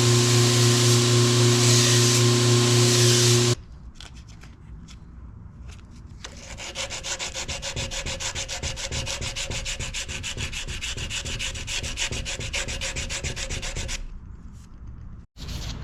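A power tool runs with a steady hum and cuts off sharply about three and a half seconds in. Then, from about six seconds in, sandpaper is rubbed back and forth by hand in quick, even strokes over a wooden knife handle, stopping shortly before the end.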